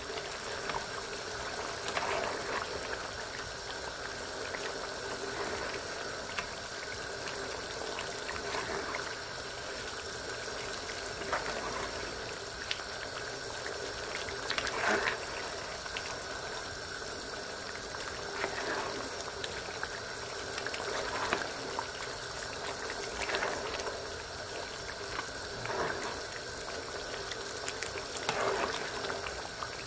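Curry goat's thick gravy simmering and bubbling in a pan, with a ladle stirring through the stew now and then.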